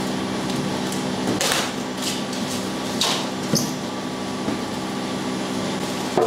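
Cardboard box and styrofoam packing pieces being handled and shifted, giving a few short scrapes and rustles over a steady low hum.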